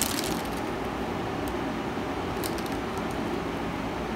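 Steady background room noise with a few faint clicks; no speech.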